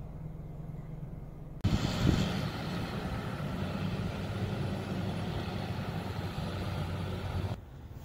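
Vehicle engine running with a low steady hum. A little over a second in it gives way abruptly to a louder engine and street noise, which cuts off abruptly near the end.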